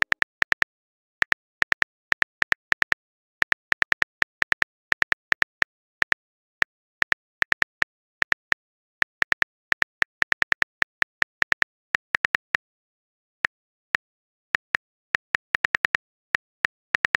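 Smartphone keyboard clicks, like a text message being typed: many short, sharp taps in uneven bursts, thinning out for a couple of seconds after the middle.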